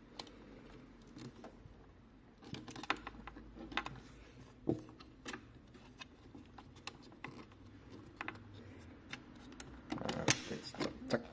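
Scattered plastic clicks and knocks as a phone-holder cradle is handled and fitted on a motorcycle's navigation mount, with a burst of louder clicks near the end.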